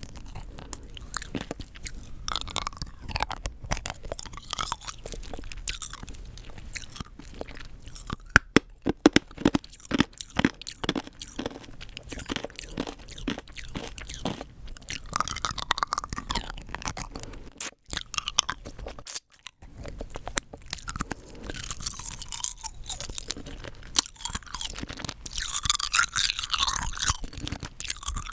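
Rock candy crunched and chewed close to the microphone: a long run of sharp cracking bites, densest and loudest about eight to eleven seconds in, with quieter chewing between.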